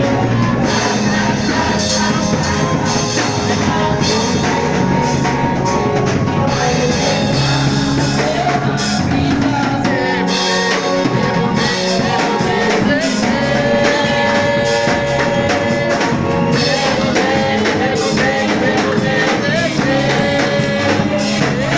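Band music with a drum kit and a singing voice holding long notes, playing steadily throughout.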